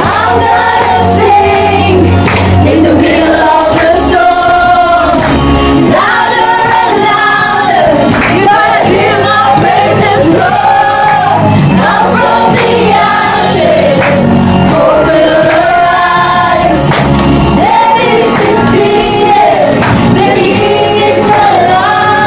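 A group of people singing a Christian worship song together over backing music with sustained bass notes.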